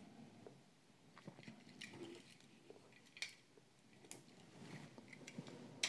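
Faint handling noise: a few light clicks and rubs as fingers turn small diecast toy cars, with the sharpest tick about three seconds in.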